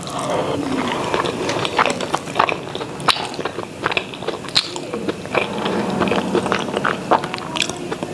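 Close-miked eating of rice and chicken curry by hand: chewing and wet mouth sounds with many sharp, irregular clicks and squelches, alongside fingers mixing rice on the plate.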